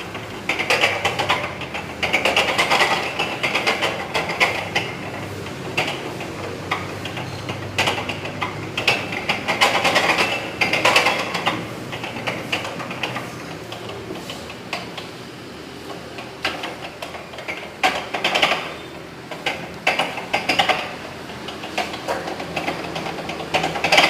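Manual pastry dough sheeter being worked, its mechanism clattering and clicking in irregular bursts.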